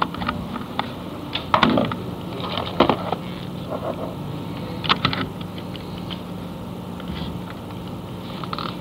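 Scattered small clicks and knocks of objects being handled, over a steady low hum that sets in about two seconds in.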